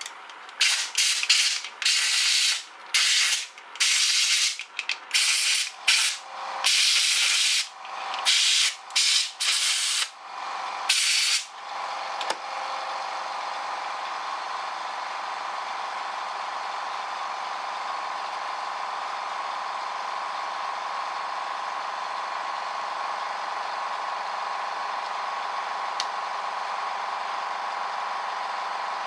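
Bare small electric motor of a cordless mini angle grinder, out of its housing, starting and stopping in about a dozen short bursts, then running steadily with a constant whine from about twelve seconds in. The stop-start running fits the failing switch that the owner goes on to blame.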